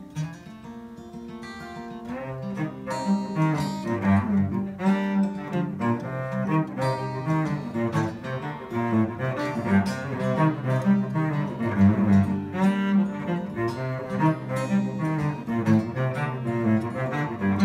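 Cello bowing a rhythmic low accompaniment with an acoustic guitar strumming along; held notes give way to steady rhythmic playing about two seconds in.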